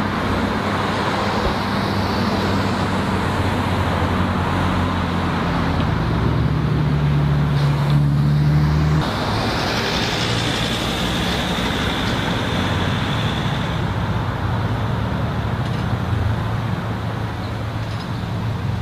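Motor vehicle engine running with steady street traffic noise. It changes abruptly about halfway through, after a stretch where the engine hum is louder, and a thin high whine follows for a few seconds.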